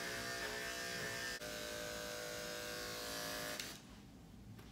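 Electric dog-grooming clippers running with a steady hum while shaving a matted coat, then switched off about three-quarters of the way through.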